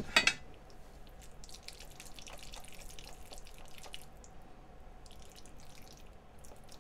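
Chopsticks mixing sticky marinated raw beef with raw octopus and egg yolk in a stainless steel pan: a sharp clack of chopsticks against the pan at the start, then a run of faint wet, squelching clicks that thins out in the second half.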